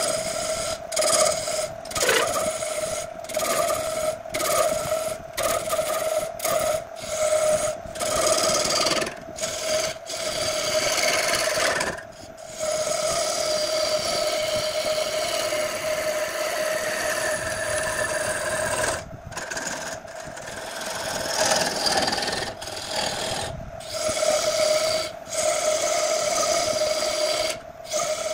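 Wood lathe turning a large wooden vase blank while a hand-held gouge cuts into the spinning wood, a scraping cut over a steady hum. The cut comes in short strokes about once a second, runs unbroken for several seconds in the middle, then returns to short strokes.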